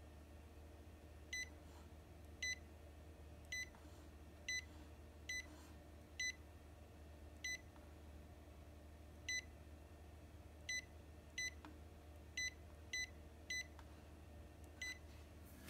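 Epson XP-8500 touchscreen beeping once for each key pressed as the Wi-Fi password is typed in: about fourteen short beeps at one pitch, irregularly spaced.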